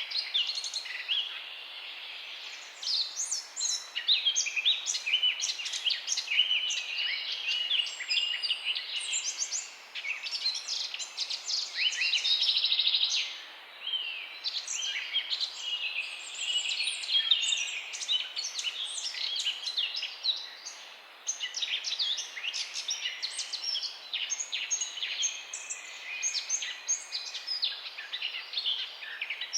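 Morning chorus of many songbirds chirping and singing together, with quick overlapping chirps and whistles throughout and a buzzy trill about twelve seconds in.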